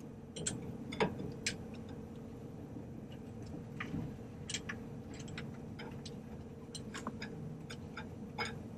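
Irregular light metallic clicks and ticks, about a dozen, over a low steady hum, from chains and hoist gear being handled while an engine is lowered on a hoist.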